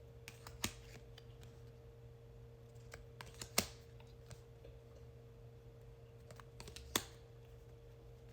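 Oracle cards being handled and flipped: scattered light clicks and taps of card stock, with three sharper snaps, the loudest about halfway through, over a faint steady hum.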